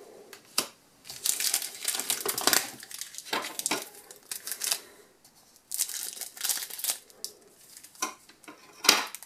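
Foil wrapper of a trading-card booster pack crinkling in the hands, in several irregular bursts with short pauses between.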